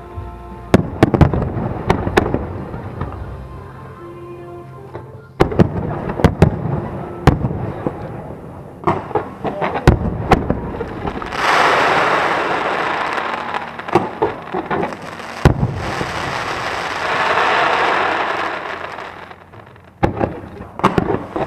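Aerial fireworks display: a string of sharp bangs from bursting shells, with two long stretches of dense crackle, one about halfway through and another a few seconds later.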